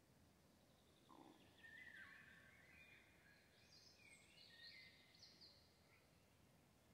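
Faint songbird song: a run of short whistled phrases from about a second and a half to six seconds in, from a Eurasian golden oriole with other birds singing too.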